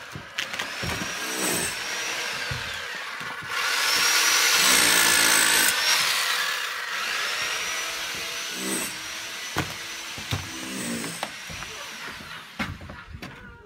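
Handheld electric power tool run in three bursts, its motor whining up to speed, holding and winding down each time. The middle burst is the loudest, with a harsh working noise under the whine.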